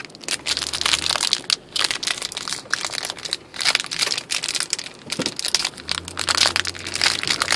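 Plastic card packaging crinkling and crackling as it is handled and unwrapped, in rapid irregular bursts.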